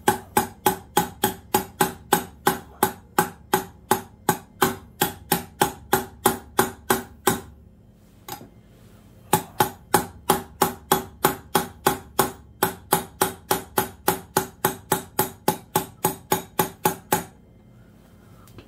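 Hammer striking a hooked steel pry bar set in the slot of a Williams S-52 Super Ratchet's threaded lock ring, trying to drive the jammed ring around. Steady, ringing metal strikes come about three a second, pause for about two seconds near the middle, then run on again and stop shortly before the end. The ring is barely moving.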